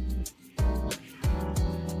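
Background music: plucked string notes struck every half second or so over steady held low tones.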